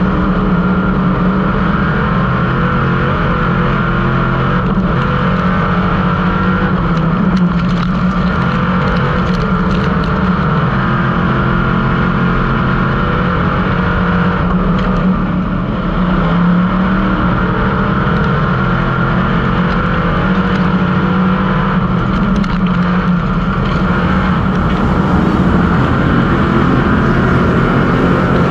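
Street stock race car's engine heard from inside the cockpit, running hard at fairly steady revs through a dirt-track race, with a slight drop in level a little past halfway.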